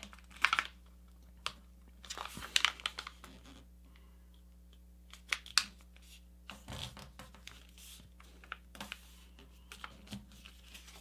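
A sheet of paper rustling and crinkling in irregular bursts as a paper-airplane wing is folded over and its crease pressed flat by hand.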